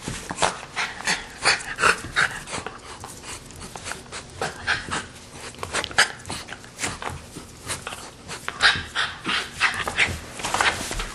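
Small white dog panting in short, quick, irregular breaths, close up.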